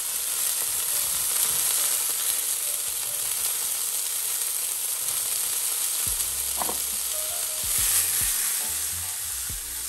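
Mushrooms, peas and freshly added green beans sizzling steadily in hot oil in a non-stick frying pan. In the second half the pan is shaken on the hob, with a few low knocks, and the sizzle swells briefly near the end.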